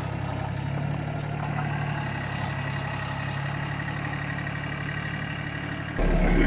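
Engine idling steadily. About six seconds in it changes suddenly to a louder, deeper engine hum.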